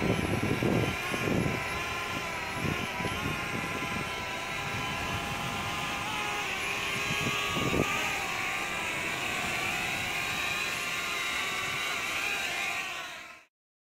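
Small DJI quadcopter drone hovering close by, its propellers giving a steady multi-pitched whine that wavers slightly as it holds position. Low wind rumble on the microphone for the first couple of seconds. The sound cuts off abruptly near the end.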